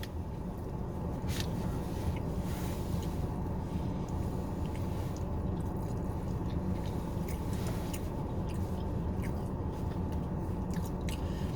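Chewing and small mouth sounds of someone eating, with faint scattered clicks, over a steady low hum inside a car.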